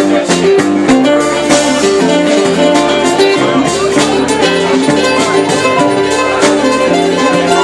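Live band playing an instrumental passage: guitar and bass notes over a drum kit, with steady cymbal and drum hits and no singing.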